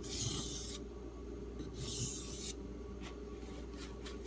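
A D2 steel knife blade drawn across a wet 3000-grit Arkansas sharpening stone in two strokes, each a short scraping hiss, the second about two seconds in. A few faint ticks follow near the end.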